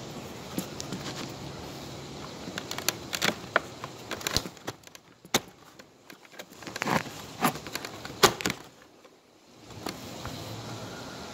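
Irregular clicks, taps and scrapes of fingers handling the recording phone, over a steady low hum. The handling noise stops with a brief near-drop-out about nine seconds in, and the hum comes back.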